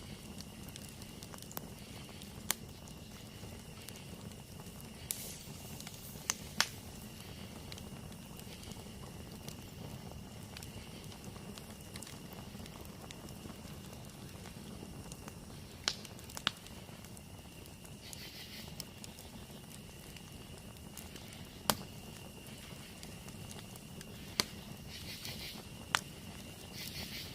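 Campfire burning with a steady low hiss, broken by about ten sharp crackles and pops of burning wood scattered irregularly. A thin, steady high-pitched hum runs behind it.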